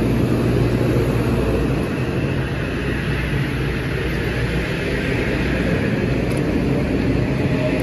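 Metro-North M8 electric multiple unit rolling past close by: a steady, loud rumble of wheels on rail, with a faint whine near the start and again near the end.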